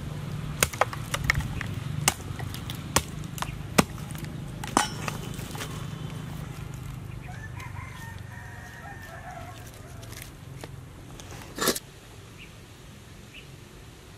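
Sharp cracks and snaps from a small stick fire being built up, thick in the first few seconds with one louder crack near the end. A rooster crows faintly about seven seconds in, one call lasting a couple of seconds.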